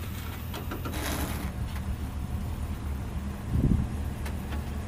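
Pickup truck engine idling with a steady low rumble, wind buffeting the microphone, and a single low thump about three and a half seconds in.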